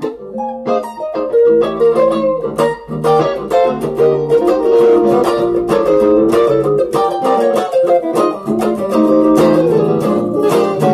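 Stratocaster-style electric guitar played through a Zoom G1on multi-effects pedal: a blues in B-flat, with fast picked single-note lines and short chord stabs running without a break.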